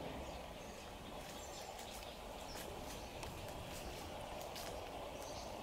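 Faint outdoor ambience: a steady background hum with short, high chirps and ticks scattered through the middle.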